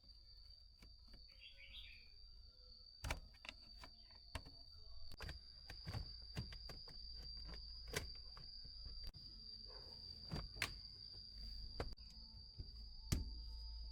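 Scattered clicks and knocks of handling, the sharpest about three seconds in and near the end, over a steady high-pitched tone.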